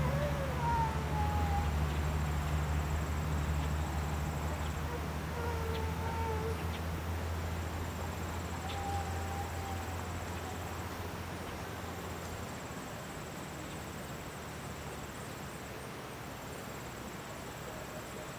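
Outdoor ambience. A low steady hum fades out about two-thirds of the way through. An insect makes a thin, high trill in spells of a few seconds, and a few faint wavering tones come and go.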